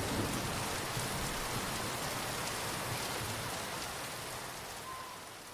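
Steady rush of shallow running stream water, fading out near the end.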